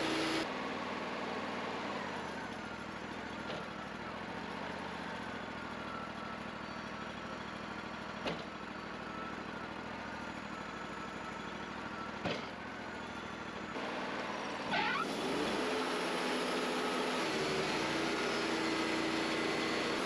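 Wood-Mizer LT40 portable bandsaw mill running, its band blade cutting through a log with a steady mechanical running sound and a faint whine. There are a couple of faint knocks, and the sound grows a little louder about three-quarters of the way through.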